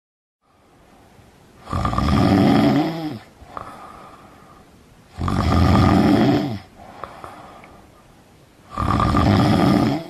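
A man snoring in his sleep: three long, loud snores, each about a second and a half, coming about every three and a half seconds, with quieter breathing between them.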